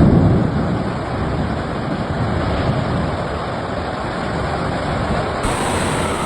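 Storm wind gusting hard against a phone's microphone, a loud steady rushing and buffeting, heaviest in the low end.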